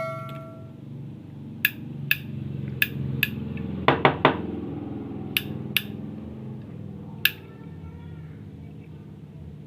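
Sharp metallic clicks and knocks, about ten of them spread unevenly, as tools and parts of a 12-volt snail horn are handled during repair. A pitched horn note dies away in the first second.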